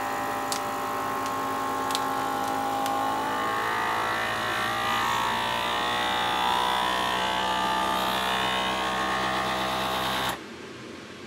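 FoodSaver vacuum sealer's pump running steadily as it draws the air out of a bag of ground venison, its tone shifting partway through as the bag pulls tight. The pump cuts off abruptly about ten seconds in, once the vacuum is complete.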